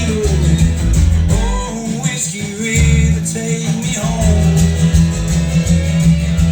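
Recorded music with guitar, a singing voice and a heavy bass line, played back over Klipschorn horn loudspeakers driven by a McIntosh MC205 amplifier.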